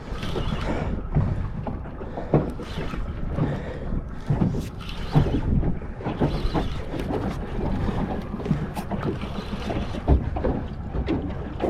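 Small boat on open water: wind buffeting the microphone and water slapping against the hull, with irregular light knocks.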